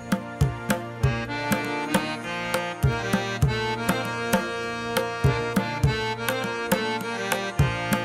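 Background music: a steady, regular drum beat over a sustained melody.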